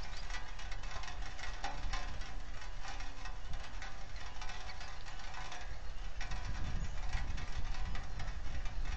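Rain pattering close to the microphone, a dense run of irregular small taps, over a low rumble that grows stronger after about six seconds.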